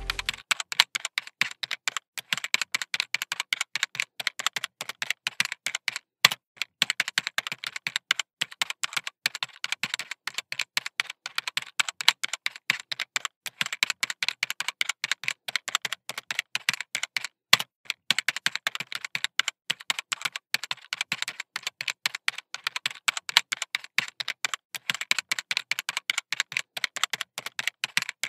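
Fine-tip black ink pen ticking and scratching on sketchbook paper in rapid short strokes while drawing tiny circles, an uneven run of many quick clicks a second.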